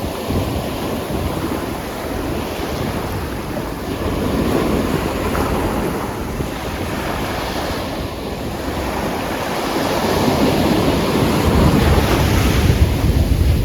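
Atlantic Ocean waves breaking and washing up on a volcanic black sand and pebble beach, rising and falling in slow swells. Wind rumbles on the microphone, heavier in the last few seconds.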